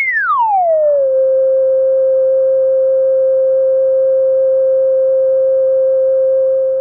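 A steady electronic sine-wave test tone, the kind that goes with a TV test card. In the first second it slides down from a high pitch to its steady note, then holds that one note.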